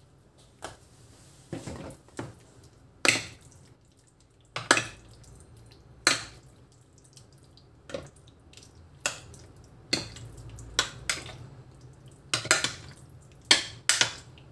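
A metal utensil stirring cubed raw chicken in a thick, wet marinade in a glass baking dish: irregular wet squelches and clinks of metal on glass, roughly one a second.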